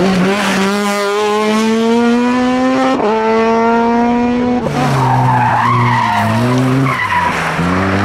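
Opel Adam rally car at full throttle, its engine pitch climbing steadily through the revs with one upshift about three seconds in. Then, about two-thirds through, a Suzuki rally car on a gravel corner, its engine note falling and rising, with the rough noise of its tyres on loose gravel.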